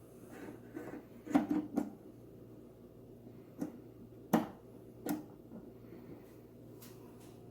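Hands handling a plastic turntable while fitting its drive belt around the motor pulley: a quick cluster of clicks about a second and a half in, then a few single sharp knocks about a second apart, the loudest near the middle.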